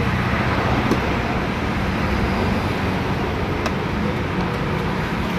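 Steady roadside traffic noise, with the low hum of engines running, and a couple of faint clicks.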